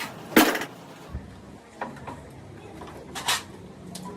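A few sharp knocks and clanks, the loudest about half a second in and others near two, three and four seconds in, over a low steady hum.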